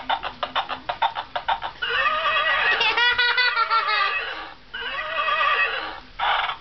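Plush rocking horse's sound effect: galloping hoofbeats at about five a second, then a long wavering horse whinny about two seconds in, followed by a second shorter whinny and a brief burst near the end.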